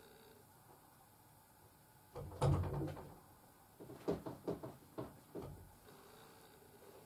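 A dull knock about two and a half seconds in, then a quick run of light clicks and taps, the handling noise of small objects being picked up and set down.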